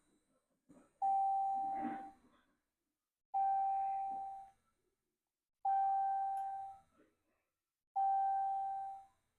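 Electronic warning chime dinging four times at an even pace, about every two and a quarter seconds. Each ding is one steady note that starts sharply and fades over about a second.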